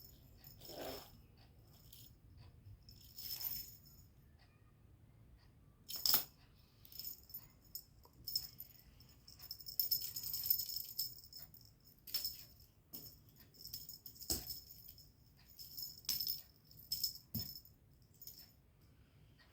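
Faint metallic jingling and rattling in short, scattered bursts, with a few sharp clicks.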